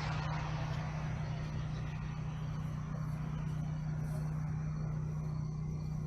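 A machine hum, such as an engine or motor running, holds one constant low tone throughout with a steady background noise.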